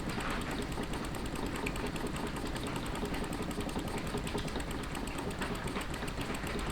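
Small model steam engine running steadily on a bench test, a rapid, even mechanical patter.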